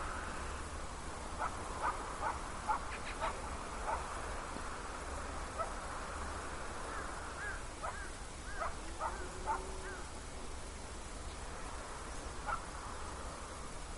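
A loose run of short animal calls, a dozen or so over several seconds with one more near the end, over a steady low hum.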